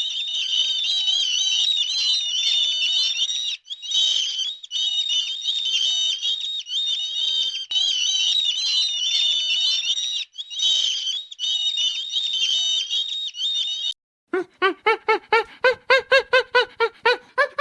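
A flock of small birds chirping and twittering, many high-pitched calls overlapping with two brief breaks. Near the end it cuts to a rapid string of short, lower-pitched animal calls, about five a second.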